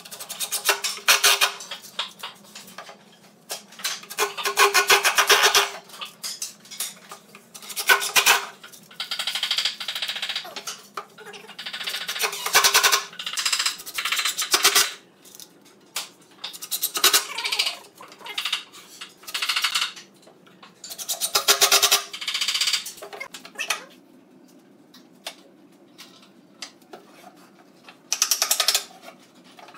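Cordless impact driver hammering screws into pine boards in short bursts of one to two seconds, about a dozen times, with pauses between.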